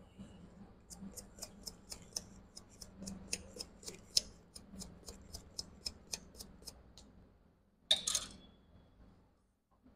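Short scratchy scrubbing strokes on a laptop logic board, about four a second, as the area around a freshly replaced USB-C controller chip is cleaned. A single louder scrape comes about eight seconds in.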